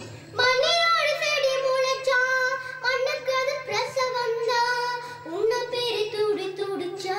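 A young girl singing into a handheld microphone, holding and bending long notes; her voice comes in about half a second in, after a quiet instrumental passage.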